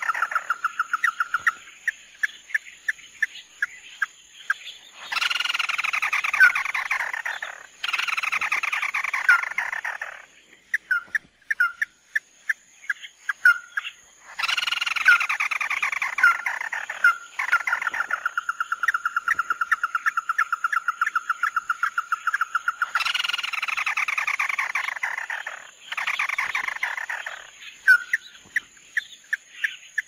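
Red-legged crake ('chim mắt đỏ') calling: loud rattling trills that fall in pitch over about two seconds each, several times, between runs of sharp clicking notes and one long steady trill in the middle. A faint steady high whine sits under the calls.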